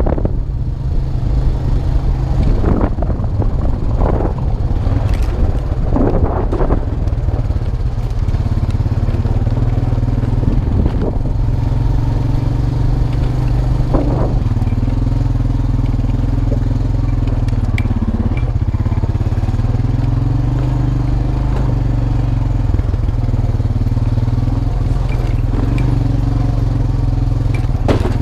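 The single-cylinder engine of a 2002 Honda Rancher 350 quad runs at a steady, even speed while it is ridden. There are a few knocks and rattles in the first several seconds.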